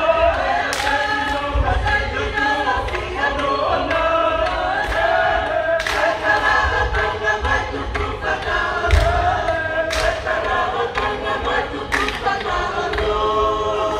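Tongan lakalaka: a large group singing a chant in several parts, with long held notes and a few sharp accents cutting through.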